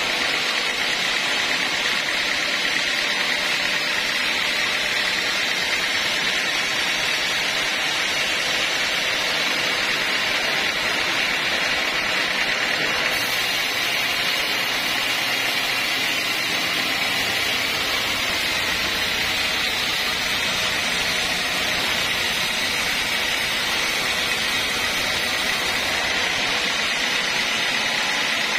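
Homemade band sawmill running, its band blade sawing lengthwise through a mahogany log with a steady, loud mechanical noise. A deeper rumble joins about halfway through.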